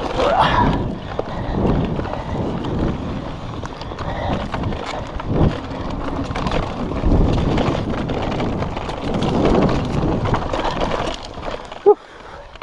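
Electric mountain bike riding a rough dirt trail: knobbly tyres rolling over the ground, with the bike rattling and knocking over bumps. It quietens near the end, just after one sharp knock.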